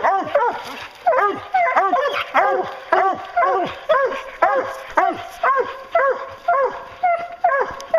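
Bear hounds bawling up a tree, about two barks a second, several dogs overlapping: the tree bark of hounds that have a bear treed.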